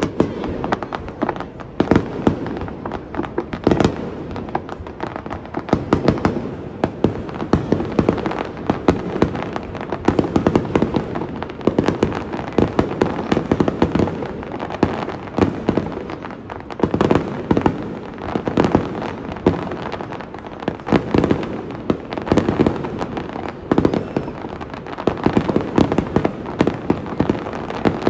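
Aerial fireworks display: shells bursting with many sharp pops and bangs in quick succession, coming in louder clusters every few seconds.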